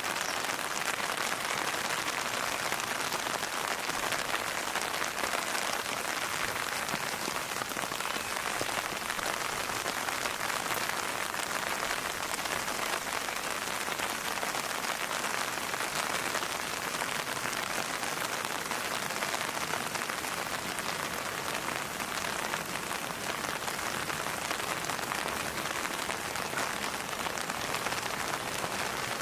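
Steady rain falling on a surface, a dense even patter of drops that keeps on without a break.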